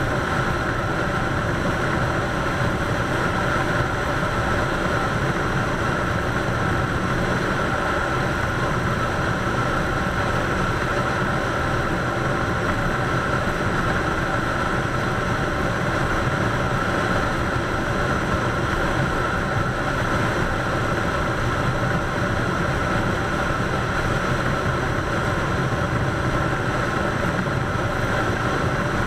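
Harley-Davidson Softail's V-twin engine running steadily at highway cruising speed, its drone mixed with wind and road noise.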